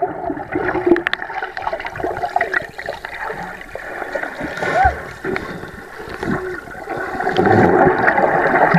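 Indistinct voices over the wash and splash of water.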